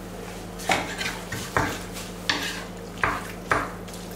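Spaghetti being stirred and tossed in a frying pan: a utensil scrapes and clatters against the pan in about seven uneven strokes, over a steady low hum.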